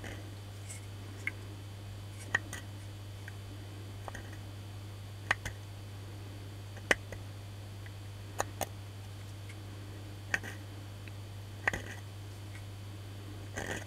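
Metal pick scraping and clicking in the slots between the copper commutator bars of a Makita 9237CB polisher's armature, cleaning out the dirt between the bars. Sharp, irregular clicks about one to two seconds apart, over a steady low hum.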